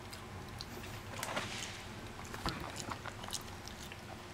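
Dachshund chewing food, with faint, scattered crunches and clicks of its teeth.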